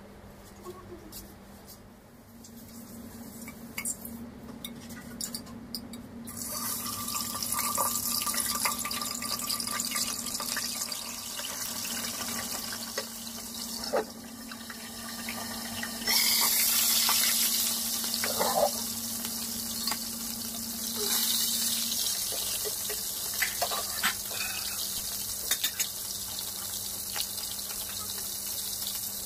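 Whole fish frying in hot oil in a wok: a steady sizzling hiss that starts about six seconds in and gets louder about sixteen seconds in, with a few knocks from the glass lid and pan.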